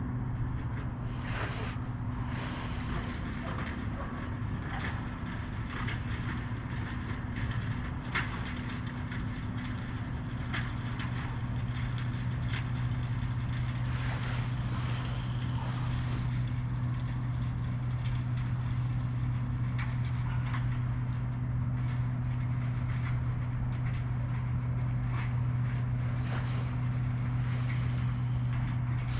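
A steady low motor-like hum, with scattered light clicks and short patches of hiss.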